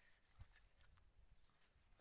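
Near silence, with a few faint short taps.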